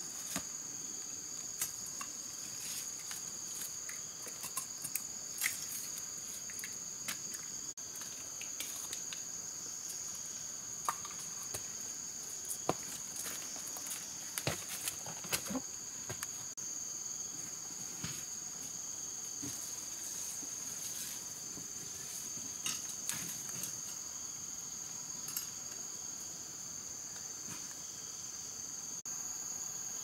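Steady high-pitched chorus of insects, two unbroken shrill tones, with scattered short clicks and crackles over it.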